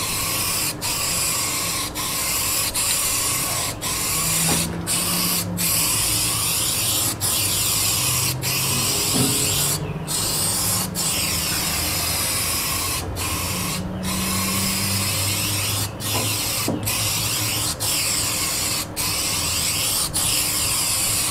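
Aerosol can of etch primer spraying in a continuous hiss, cut by short breaks about once a second as the nozzle is let go and pressed again, laying down a heavy coat.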